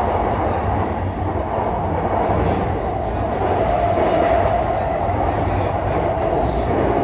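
JR East E233 series 5000-subseries electric commuter train running, heard inside a passenger car: steady rolling noise of the wheels on the rails with low rumble from the car body.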